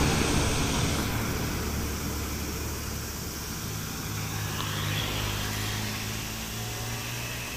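A city bus's engine rumbling as the bus passes close and pulls away uphill, fading as it recedes. About halfway through, a small scooter passes by.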